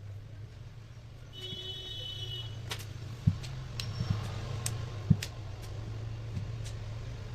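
A steady low hum, with a short high electronic tone about a second and a half in, then a handful of light clicks and taps spread over the next few seconds.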